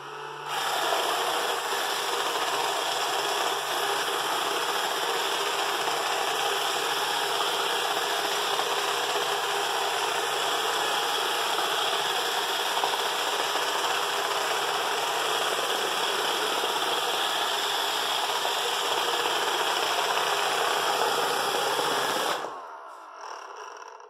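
iRobot Roomba Discovery 4210 robotic vacuum (a 2006–2007 model) running: the steady whir of its vacuum motor and brushes as it drives across a hard floor. It starts about half a second in and stops shortly before the end.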